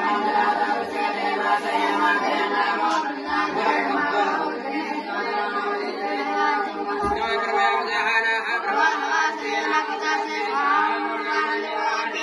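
A group of voices chanting Hindu puja mantras together, a continuous chant with no breaks.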